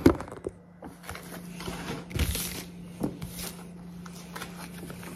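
Plastic breast milk storage bags being handled and crinkled, in short rustles with a couple of light knocks. A steady low hum runs underneath.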